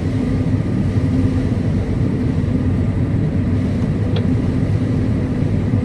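John Deere combine running, a steady low drone heard from inside the cab, with a single short click about four seconds in.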